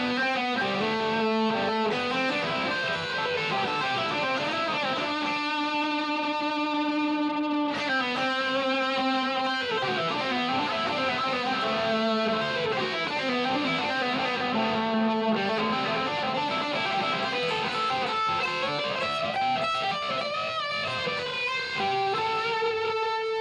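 1958 Gibson Les Paul Special electric guitar played through a Line 6 Helix modeller with overdrive and a little delay, on the middle pickup setting: a classic lead sound. A single-note lead line of held notes with string bends and vibrato, ending on a long held note.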